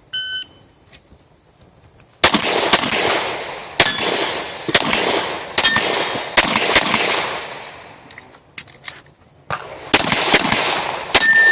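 Shot timer start beep, then about two seconds later rapid strings of pistol shots from a compensated Glock 35 in .40 S&W, each crack followed by an echo. The shooting pauses for about a second and a half, then resumes near the end.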